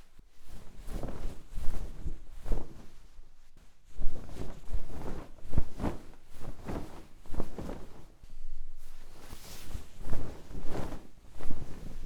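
Foley of a ship's deck creaking: a wooden floor creaking and knocking in an irregular run of strokes as a foot presses down hard and the weight shifts from side to side.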